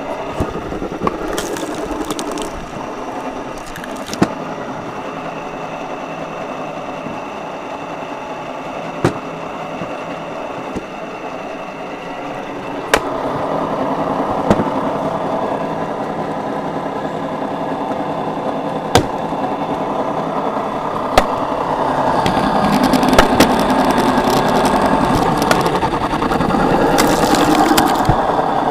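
Motor-driven log splitter running steadily while splitting firewood, with sharp cracks as logs split; the machine gets louder under load around the middle and again near the end.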